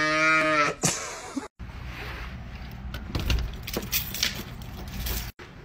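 A calf's drawn-out moo, the loudest sound, ending just under a second in. After a short break, a bunch of keys jangles and clicks against a door lock, with many small clinks.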